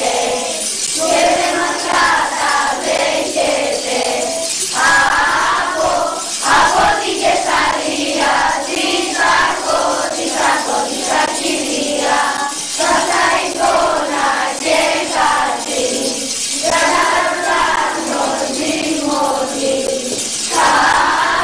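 Children singing Greek Christmas carols (kalanta) together, with a jingling percussion accompaniment throughout.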